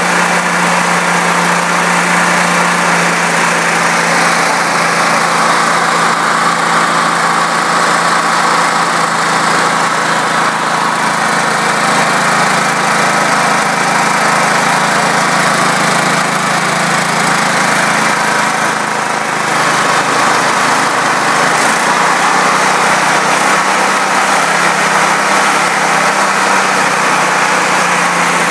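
Portable generator's small gasoline engine running steadily, fed on gasoline vapor drawn through its carburetor.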